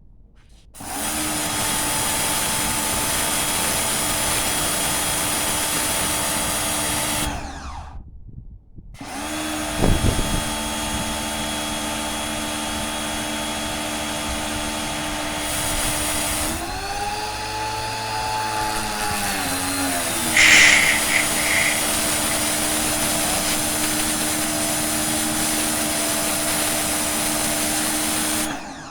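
Pro Clean PKPW01 electric pressure washer's motor and pump running with a steady hum, stopping about a quarter of the way in and starting again a couple of seconds later, then stopping again just before the end. Midway its pitch dips for a few seconds as the motor comes under load, and there is a single knock shortly after the restart.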